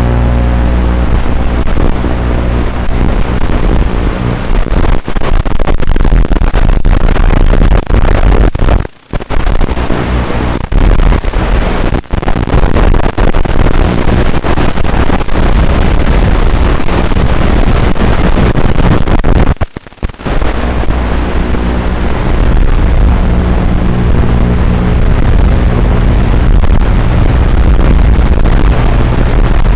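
Micro FPV quadcopter's small electric motors and propellers buzzing loudly as it flies, cutting out briefly twice, about nine seconds in and again about twenty seconds in.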